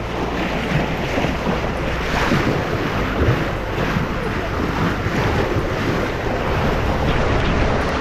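Strong wind buffeting the microphone over the rush and splash of rough sea along a sailboat's hull, steady throughout.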